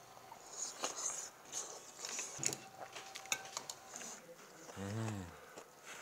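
Eating sounds: a spoon clicking against a small metal bowl and short slurps of spicy stew broth, with a brief low "mm" hum about five seconds in.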